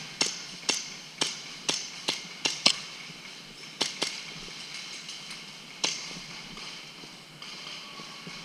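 Airsoft gun firing single shots as sharp cracks, about two a second for the first three seconds, then a quick pair and one last shot about six seconds in.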